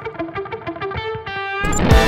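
Instrumental outro music: a quick rhythmic run of short pitched notes that swells into a louder, fuller section with drum hits near the end.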